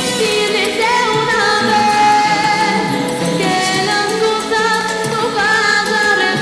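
A girl singing into a handheld microphone with musical accompaniment, her voice sliding between held notes.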